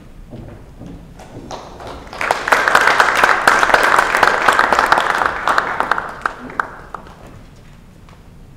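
Audience applause that breaks out suddenly about two seconds in and dies away about five seconds later, with a few footsteps on the stage floor before it.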